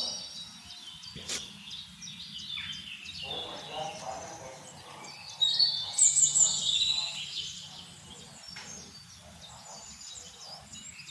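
Birds chirping in short high bursts, loudest from about five and a half to seven seconds in, over low background noise.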